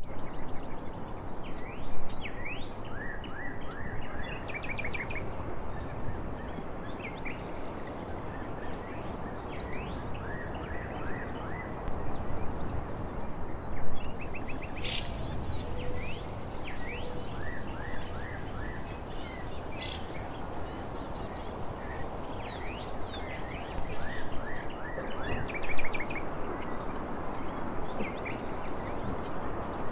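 Birds chirping over a steady background hiss, like a nature-ambience track, with a thin high steady whine through the middle stretch.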